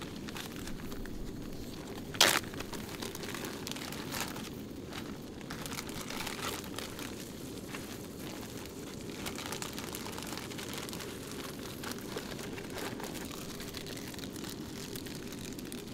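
Plastic zip bag crinkling and rustling in the hands in scattered small crackles, with one sharp click about two seconds in, over a steady low rushing noise.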